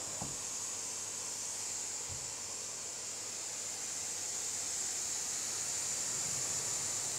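Pressure washer's high-pressure water jet hissing steadily while rinsing a foam-covered car, a little louder in the second half. Two faint low thumps come in the first couple of seconds.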